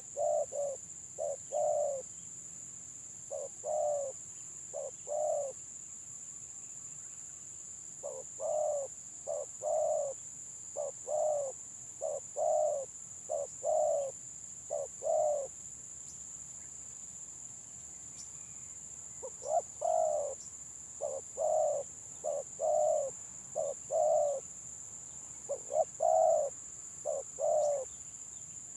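Spotted doves (tekukur) cooing in bouts of short, low coo notes in the broken, stuttering 'gagap' style, with pauses of a few seconds between bouts.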